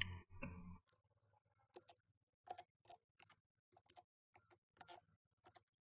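A low hum cuts off within the first second. After that come faint, sharp, uneven clicks, about two or three a second, sped up: small screws being driven back into a laptop's plastic bottom case with a hand screwdriver.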